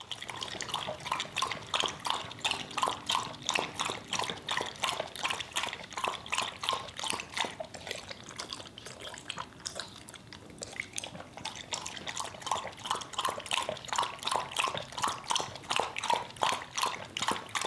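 Dog lapping water from a bowl: quick, wet, rhythmic laps at about four a second, continuing steadily.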